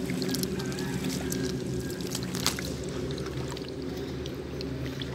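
Small wet clicks and squelches as a hand rummages through mud and water in a plastic basket, over a steady low engine-like drone.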